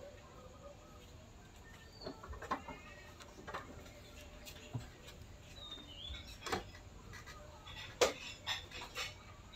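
Quiet outdoor background with a few scattered short knocks and clicks, the loudest about eight seconds in, and a couple of brief high chirps from birds.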